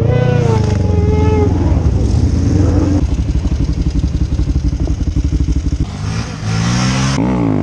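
Motorcycle engines running up close: a steady pulsing idle through the middle, then a quick rev that rises and falls near the end.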